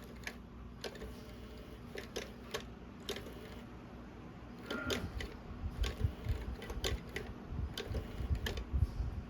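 A cat toy clicking and rattling as a cat plays with it, with irregular sharp taps. From about halfway through, low thumps and bumps join the clicks.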